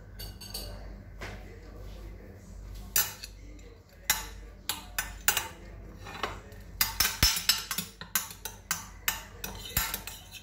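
Metal spoon clinking and scraping against a glass baking dish: scattered sharp taps from about three seconds in, coming in a quick run in the second half.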